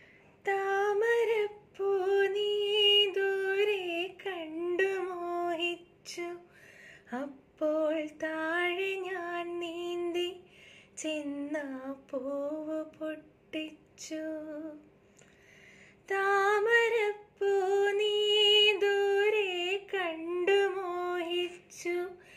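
A woman singing a Malayalam song alone with no instruments, in phrases of long held notes with short breaths between them.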